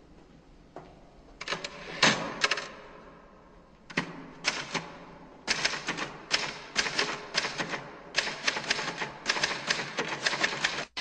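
Manual typewriter being typed on: fast runs of sharp keystrokes in bursts with short pauses between them, starting about a second and a half in, with a long unbroken run near the end.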